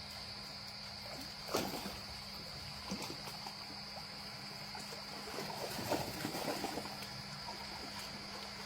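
Dogs' paws scuffling on the floor as they chase a laser dot: scattered light knocks and scrapes, busiest about two-thirds of the way in, over a steady electrical hum.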